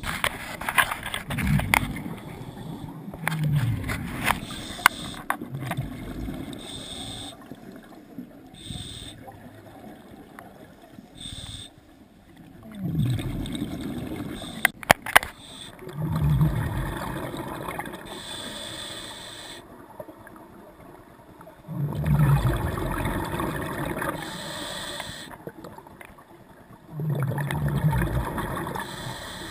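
Scuba regulator breathing heard underwater: loud rushes of exhaled bubbles, each a second or two long, come every few seconds, with a fainter hiss of inhalation between them. Scattered sharp clicks, two of them close together about halfway through.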